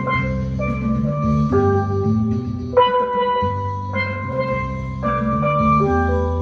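Instrumental music: a bright melody of held pitched notes over a bass line, the notes changing about once a second.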